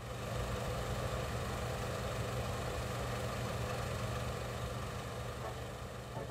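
A vehicle engine idling steadily with a low, even hum, fading in at the start.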